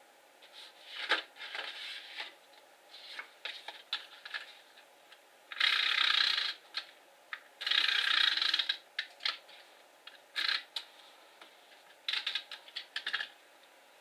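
Paper and cardstock being handled and pressed down on a work surface: scattered light taps, clicks and rustles, with two longer scraping strokes of about a second each around the middle.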